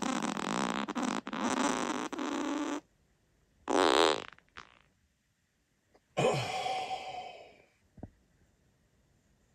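A man farting several times: a long buzzing fart that stops about three seconds in, a short one about a second later, then a longer one a couple of seconds after that which trails off, and a brief pop just after it.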